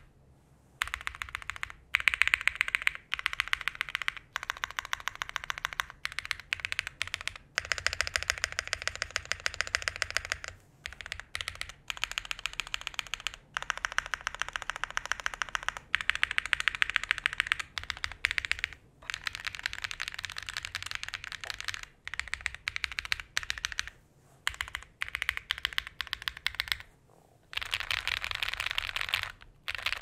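Typing on a Class65 custom mechanical keyboard built plateless with Durock POM switches: rapid runs of key clacks, broken by several short pauses.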